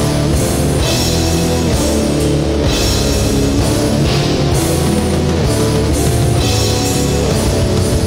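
Death metal recording: heavy distorted guitars and a full drum kit playing at a steady loud level, with cymbals crashing about once a second.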